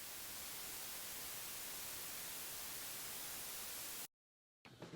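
Steady hiss of static, even across all pitches, that cuts off abruptly about four seconds in, leaving dead digital silence.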